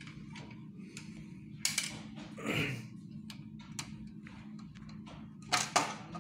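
Plastic clicks, taps and knocks from a photocopier drum cartridge's housing being handled and its cover pressed into place, with a scrape about two and a half seconds in and the loudest knocks about a second and a half in and near the end. A steady low hum runs underneath.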